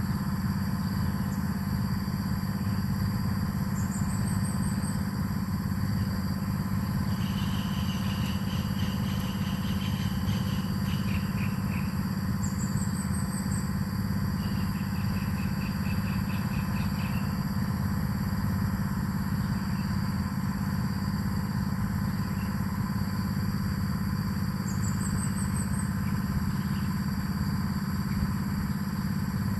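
A steady low hum, like a motor running, carries through. Over it, birds call faintly: a few short, high, rising chirps and two trilling runs of quick notes, each lasting a few seconds.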